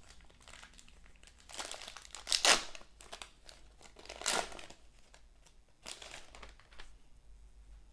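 A basketball card pack's wrapper crinkling and tearing as it is opened by hand, in several short bursts, the loudest about two and a half seconds in.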